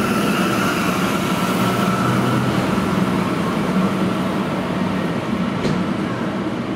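Translohr rubber-tyred tram on Michelin tyres passing close and pulling away, a steady running rumble with a high tone that fades out after a few seconds. A single sharp click about five and a half seconds in.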